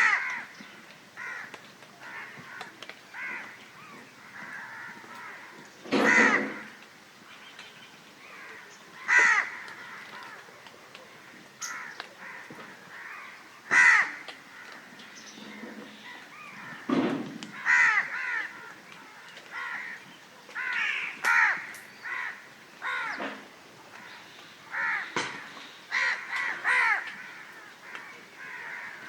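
Crows cawing repeatedly: harsh caws every second or two, some loud and close, others fainter, overlapping at times.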